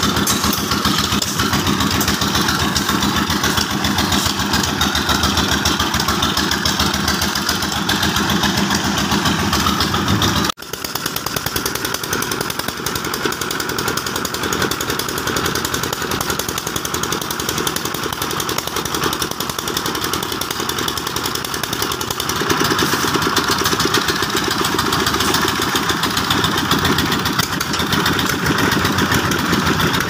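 Engine of a site concrete mixer running steadily. The sound cuts out for an instant about ten seconds in, then carries on.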